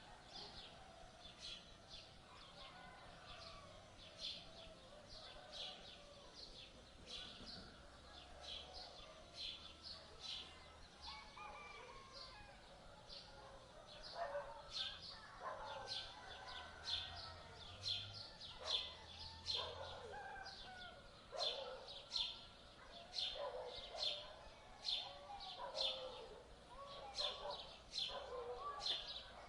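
Small birds chirping in quick, repeated short notes, with lower bird calls mixed in beneath them that grow busier and louder about halfway through.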